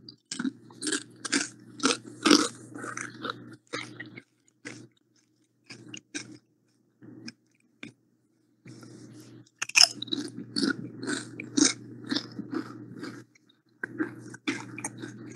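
A person chewing crunchy food: quick runs of crunches, with only a few scattered ones in a lull of several seconds in the middle.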